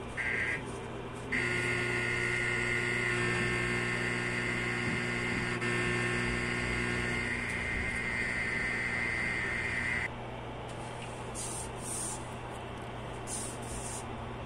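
Steady electrical hum with a higher buzz from a small speaker driven by a PAM8403 amplifier. The buzz cuts out about ten seconds in, leaving a quieter hum.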